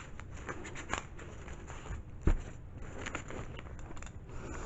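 Handling noises of papers and small items being moved about: scattered light clicks and taps, with one dull thump a little over two seconds in.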